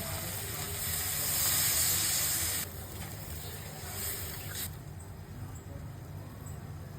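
Steady hiss of tengra fish curry sizzling in the pan. It cuts off abruptly about two and a half seconds in, comes back briefly around four seconds, and then gives way to a fainter hiss.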